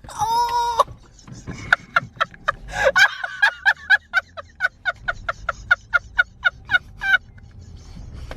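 Animal calls: one loud pitched call near the start, then a fast, even run of short high calls, about four or five a second, that stops about seven seconds in.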